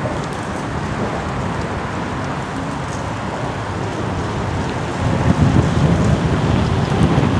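Wind rushing over the microphone of a camera riding along on a moving bicycle, a steady noise that turns louder and more buffeting about five seconds in.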